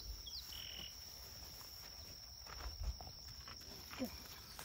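A steady high-pitched insect drone, crickets in the bush, with a few faint chirps near the start and a couple of soft knocks or steps later on.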